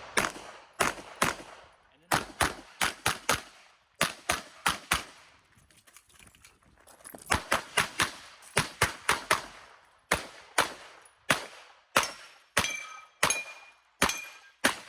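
Glock 48 9mm pistol fired rapidly, mostly in quick pairs, in strings of shots with a pause of about two seconds in the middle. A few of the later shots are followed by a brief ringing tone.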